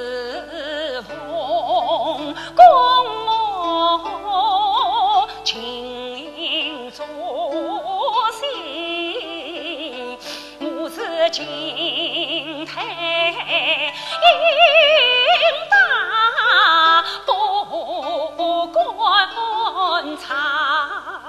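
Yue opera aria: a female voice sings a slow, ornamented melody with wide vibrato over a traditional Chinese instrumental accompaniment, with a single sharp knock about two and a half seconds in.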